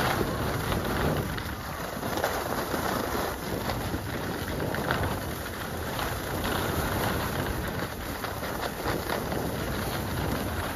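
Skis sliding and scraping over packed snow on a downhill run, a steady rough hiss with many small crunches, mixed with wind rushing over the microphone.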